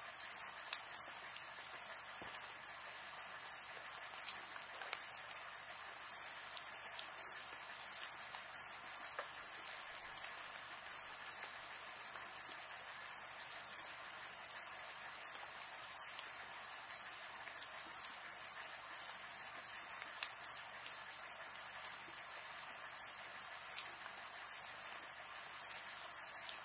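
Night insects chirping: short, very high pulses repeating about one and a half times a second, over a steady high insect trill and a faint hiss.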